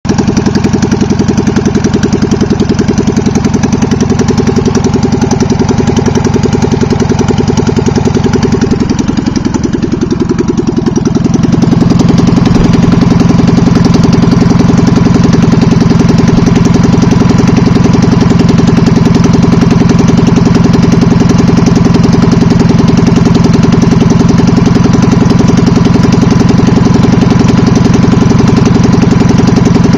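NSU Prinz 598cc air-cooled two-cylinder engine running, on its first run after sitting locked up for a long time. It dips briefly about ten seconds in, then runs louder and steady.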